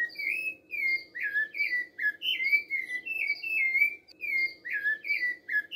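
Rufous-bellied thrush (sabiá-laranjeira) singing: a continuous run of short, clear whistled phrases, mostly falling in pitch, two or three a second.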